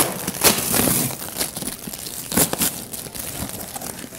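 Packing tape being peeled and ripped off a cardboard box, with crinkling and crackling of tape and cardboard; the loudest rips come about half a second in and again around two and a half seconds in.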